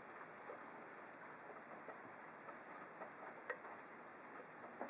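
Faint, scattered small clicks of a hook pick working the pins in an ASSA SCD 7-pin oval lock cylinder, one sharper click about three and a half seconds in.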